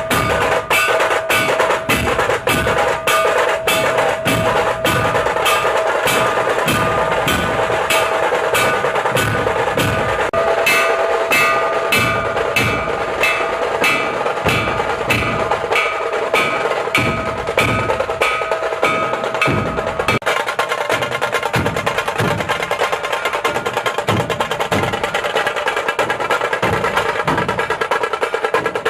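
Background music built on a steady, fast percussion beat with ringing tones over it; the arrangement changes about two-thirds of the way through.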